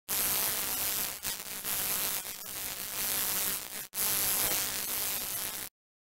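Static-like hiss with a buzz in it, broken by short dropouts roughly every second and a quarter, then cut off abruptly shortly before the end: a noise sound effect of a logo intro.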